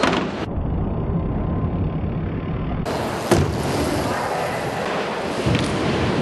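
Rolling rumble of BMX tyres on skatepark ramps as heard through the camera's own microphone, muffled for the first few seconds. A sharp knock a little over three seconds in, and a smaller one about five and a half seconds in.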